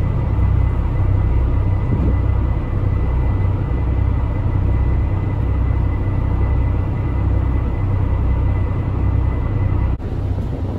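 Steady low engine rumble of a moving vehicle, with a faint steady high whine above it. The sound drops abruptly about ten seconds in.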